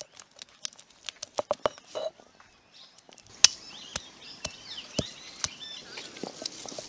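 Peeled soaked almonds cracking and crunching under a stone roller on an ammi grinding stone: a string of sharp, irregular snaps, the loudest a little past halfway.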